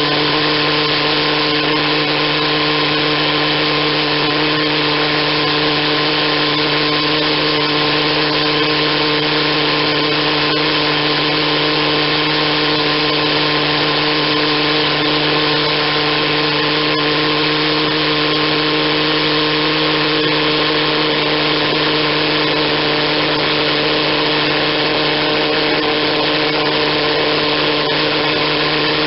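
Pulse jet engine running steadily: a loud drone that holds one pitch.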